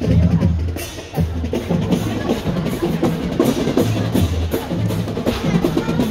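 Percussion-led music: many quick drum strokes over a deep, repeating bass, keeping a steady beat.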